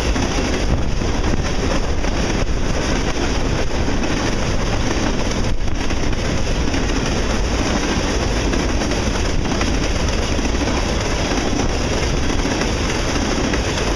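Empty freight cars of a sand train rolling past at speed: a loud, steady rush of steel wheels on rail.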